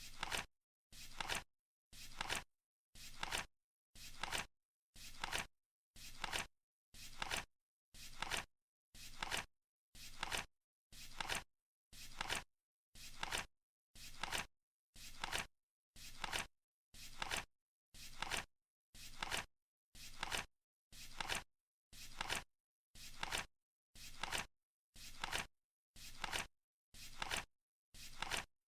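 Flip-clock countdown sound effect: a short, papery flap of a flipping card once every second, each fading quickly into silence before the next, ticking off the seconds.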